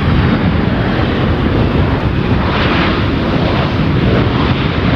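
Boeing C-17 Globemaster III's four turbofan engines running loud as the jet touches down and rolls out on a dirt airstrip: a steady, dense rumble with hiss.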